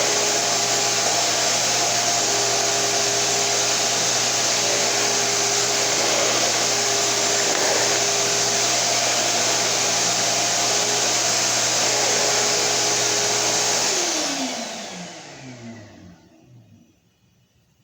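Shop-Vac Super 1300 wet/dry vacuum running steadily with its combat floor attachment, then switched off about fourteen seconds in, the motor winding down with a falling whine over a few seconds.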